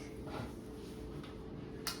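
Plastic Lego pieces being handled and clicked during building, with a soft click early and a sharp click near the end, over a faint steady hum.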